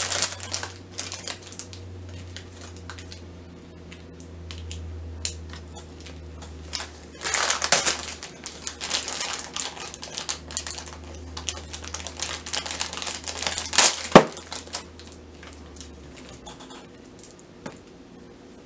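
Clear plastic toy packaging crinkling and rustling as it is unwrapped by hand, in irregular bursts of crackle, with one sharp click about three quarters of the way in. A low steady hum runs underneath and fades out near the end.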